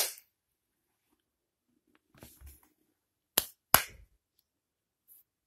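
Hand claps: two sharp claps in quick succession about three and a half seconds in, with another clap right at the start and again at the end, made to set off a toy's clap sensor.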